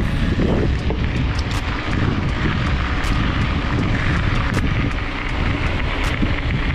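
Wind buffeting the microphone of a camera on a moving mountain bike, a steady rumbling rush, with scattered sharp clicks and rattles from the bike over rough trail.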